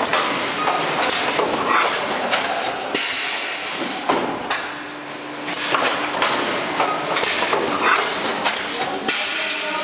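Thermoform fill-seal packaging machine running: its pneumatic cylinders hiss with compressed air in spells every second or two, with sharp metallic clacks as the forming and sealing station cycles.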